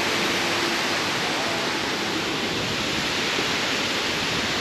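The Lechfall waterfall: a steady, unbroken rush of falling water.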